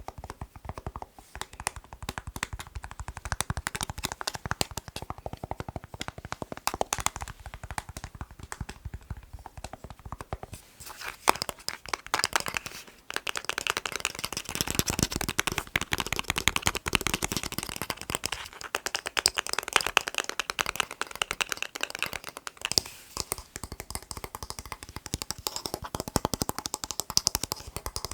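Fast, dense tapping on a plastic TV remote control, many quick taps a second. For about ten seconds past the middle the taps sound brighter and sharper.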